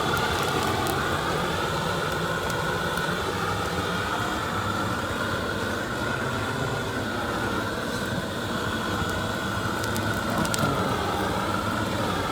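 Gas torch flame running with a steady, wavering rush, singeing the feathers off slaughtered chickens.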